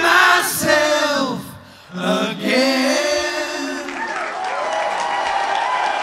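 Tribute band playing live, male lead vocal with backing voices singing, briefly dipping about halfway through. Near four seconds it gives way to a steady crowd applause.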